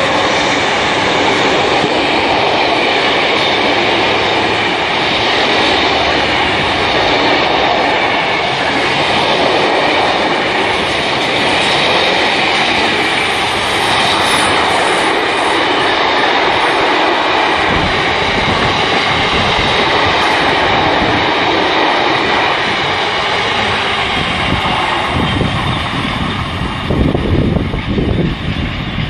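Long freight train of loaded bogie stone wagons rolling past at speed: a steady, loud rumble and clatter of wheels on rail. Near the end the train draws away and wind buffets the microphone.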